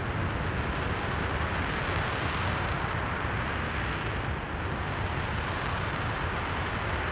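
RS-25 liquid-hydrogen/liquid-oxygen rocket engine firing at steady thrust in a ground hot-fire test: a loud, constant rush of noise that dips briefly about four seconds in.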